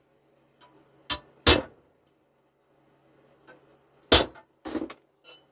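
Hammer striking a pointed punch to peen over the rivets holding a replacement sprocket nose tip on a chainsaw bar, mushrooming them into the holes to lock the tip in. Five sharp metal strikes, the loudest about a second and a half and four seconds in, the last with a brief ringing.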